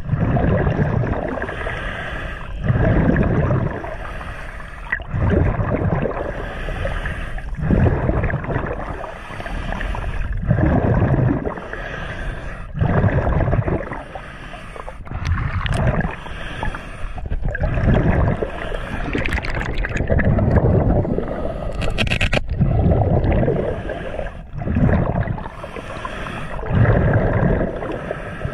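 Muffled underwater water noise on a camera in its underwater housing, surging in regular waves about every two to three seconds.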